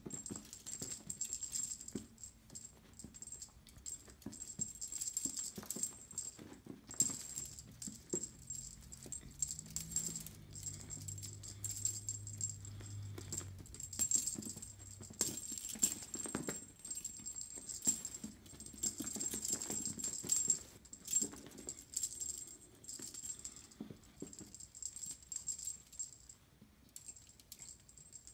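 Irregular light rattling and clicking from a feather wand cat toy being swung about, with soft knocks as a kitten pounces and lands on carpet. A thin high tone runs under it, swelling and fading.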